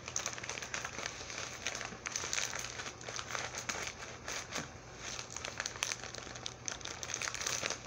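Packaging crinkling and rustling as it is handled, a dense run of small irregular crackles, over a faint steady low hum.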